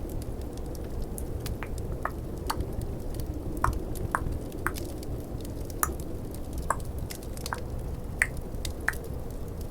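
Tongue clicking close to the microphone: about a dozen sharp, irregular clicks spaced roughly half a second apart. Under them runs a steady low rumble of snowstorm and crackling-fireplace ambience.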